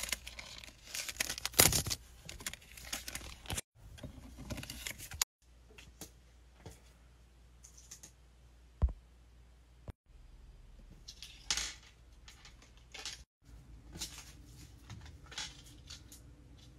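Small clear plastic bags rustling and crinkling as they are handled, then soft clicks, taps and paper rustles as metal earring hooks are pushed into a paper display card. The sound cuts out suddenly for a moment a few times.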